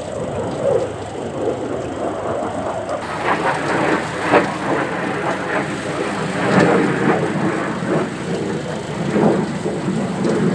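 Tractor-drawn potato planter at work: a steady mechanical rumble with irregular rattling and clattering from the planting mechanism.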